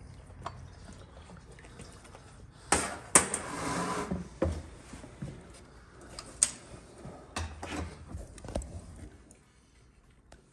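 Scattered knocks and clatters of hand tools and transmission parts being handled on a workbench, with a short noisy rustle-like stretch about three seconds in; it goes quieter near the end.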